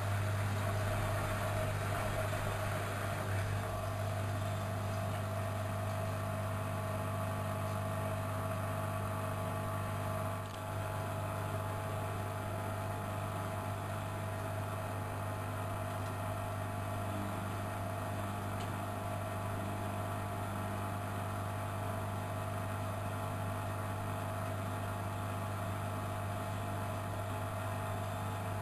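Studio WM26AAA washing machine running at a steady speed: an even motor hum with a steady whine above it, holding constant with only a brief dip about ten seconds in.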